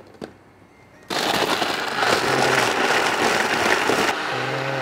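Electric countertop blender switched on about a second in, crushing ice in almond milk: a loud grinding rattle of ice against the blades that turns a little smoother and steadier near the end.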